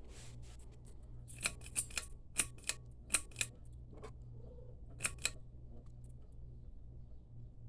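1989 View Fan V36R ceiling fan motor running with a steady low hum, broken by about ten sharp clicks in small clusters between about one and a half and five and a half seconds in.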